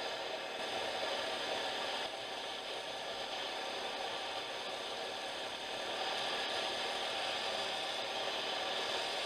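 Steady rattling and crunching of a bike riding over a gravel track, heard from a camera on the moving bike, with no clear engine note.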